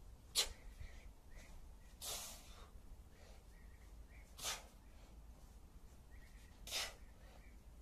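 A man breathing out hard in short, sharp hissing bursts, four times about two seconds apart, the first the loudest: exertion breathing through repeated heavy kettlebell cleans and squats.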